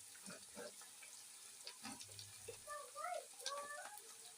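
Spring onions frying in groundnut oil in a pan, crackling and popping faintly. A faint distant voice is heard about three seconds in.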